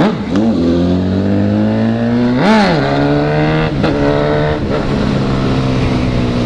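Honda CB1000 inline-four motorcycle engine being ridden with quick throttle blips. There is a short rev near the start, a bigger rise and fall about two and a half seconds in, and two smaller blips around four seconds. After that it settles into a steady run.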